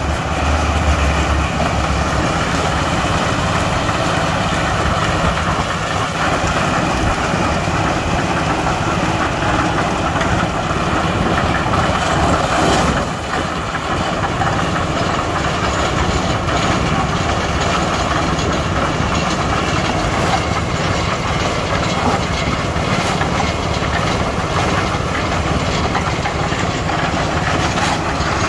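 Engine-driven concrete mixer running steadily while it mixes cement for a pour, with a brief dip in level about halfway through.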